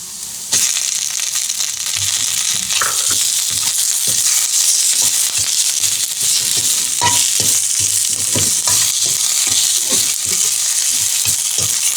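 Karpooravalli (Indian borage) leaves sizzling in hot oil in a pan. The sizzle jumps louder about half a second in as the leaves go in, and a spatula knocks and scrapes as they are stirred and sautéed.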